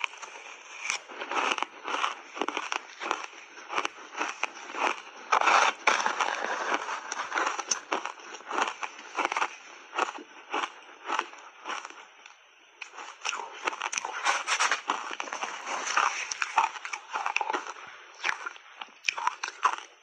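Shaved ice crunching in the mouth as it is chewed in big bites: a dense, irregular run of crisp crackles that eases off briefly about twelve seconds in.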